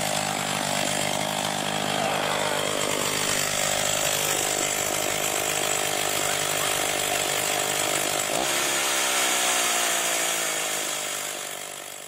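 Two-stroke chainsaw in a chainsaw mill running at full throttle, ripping lengthwise through a log to cut a board. About eight seconds in, its pitch rises as the cut finishes and the chain comes free of the wood, and near the end the engine dies down.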